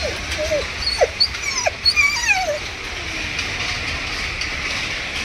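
German Shepherd whimpering: several short, falling whines in the first couple of seconds, then it goes quiet.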